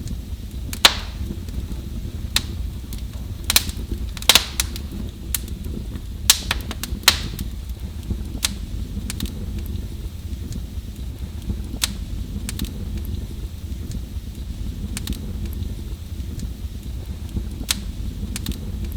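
Wood fire burning in a fireplace: irregular sharp crackles and pops over a steady low rumble of the flames, with a cluster of louder pops in the first half.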